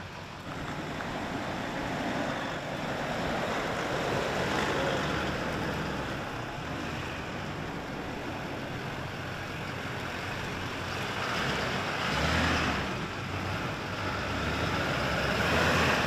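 Vehicle running with a low engine hum under a steady rushing noise of wind or road, swelling about twelve seconds in and again near the end.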